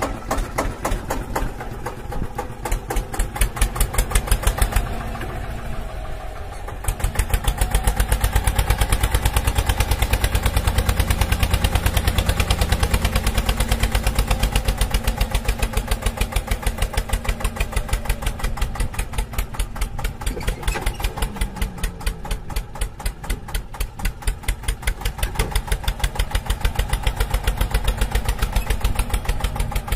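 A tractor engine chugging at a fast, even beat, getting louder about seven seconds in and staying loud.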